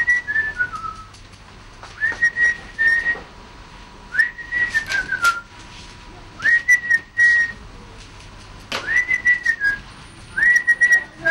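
Someone whistling short phrases, about six of them roughly two seconds apart. Each sweeps up to a held high note, and several slide down in steps at the end. Light clicks come with the phrases.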